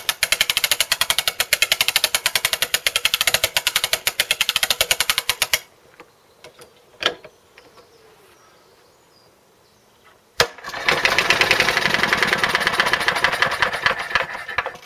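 Wind-up spring starter on a Briggs & Stratton mower engine being cranked, a rapid ratchet clicking for about five seconds. After a pause, a sharp snap near the end, then about four seconds of fast clattering as the released starter spins the engine over, which does not catch.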